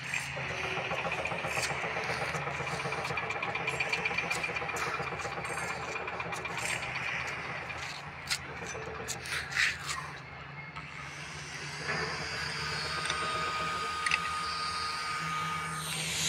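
An engine running steadily in the background, with scattered short clicks and knocks.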